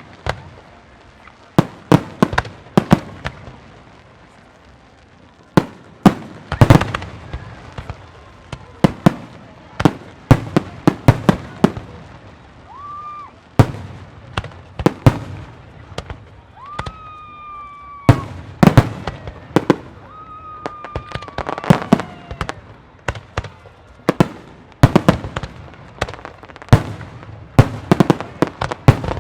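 Aerial firework shells bursting in quick succession: dozens of sharp bangs, some in rapid clusters, each trailing off in an echo. A few long high whistles sound among the bangs.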